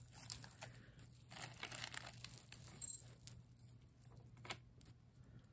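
Gold-tone metal chain necklaces clinking and jingling as they are handled, with plastic zip bags crinkling. Scattered small clicks, most in the first three seconds and one more near the end.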